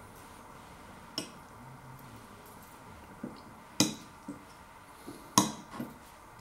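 Metal fork clinking and scraping against a ceramic dish while cutting into baked pineapple: several sharp clinks, the loudest about four and five and a half seconds in.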